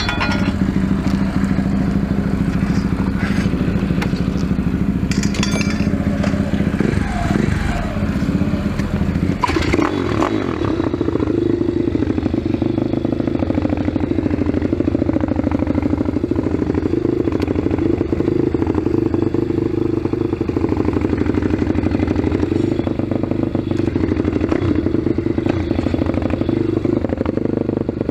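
Single-cylinder engine of a 180cc pit bike running steadily, its note changing about nine and a half seconds in, marked by a sharp click, as the bike moves off at low speed.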